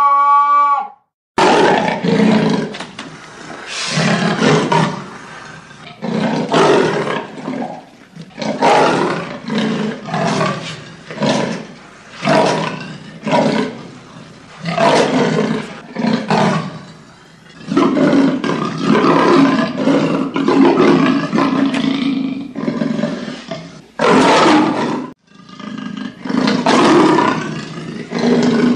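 Leopard calling: a long series of rasping, saw-like roars, roughly one stroke a second, some strokes longer and drawn out later on. A brief mewing call ends just at the start.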